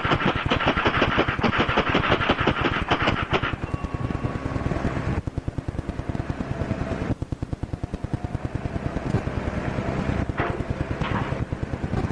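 Rapid, even mechanical clattering, many clicks a second, like a machine running, with a louder hissing layer over it for the first three seconds or so and a few sharper knocks near the end.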